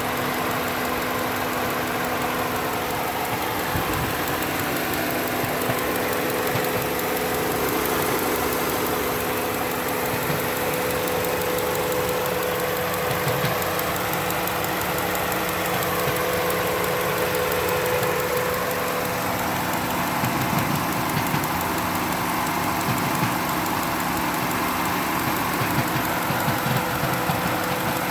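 2014 Skoda Octavia's engine idling steadily, with a steady hum and a higher tone that slowly wavers up and down over it: the strange noise the owner hears from the car, worst with the air conditioning on.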